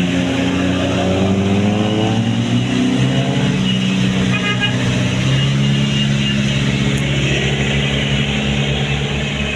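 Large tour bus engine pulling hard, rising in pitch over the first two seconds as it accelerates, then running steadily under load.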